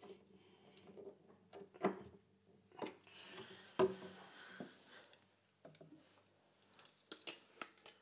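Scattered light clicks and knocks from a Swiss Army knife's Phillips screwdriver on the adjustment screw of a concealed cupboard hinge, and from the hinge and cupboard door being handled. A few sharper clicks come near the end.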